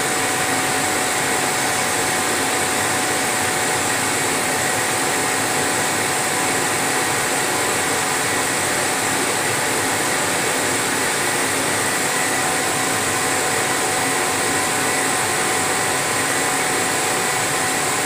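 Laser engraving machine running while it engraves a wooden sheet: a steady, airy whirring noise with a few faint steady tones running through it.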